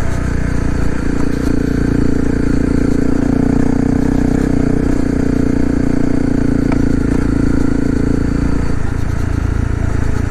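Honda CRF250L's single-cylinder four-stroke engine running as the bike rides along, its note steady and then easing off about nine seconds in.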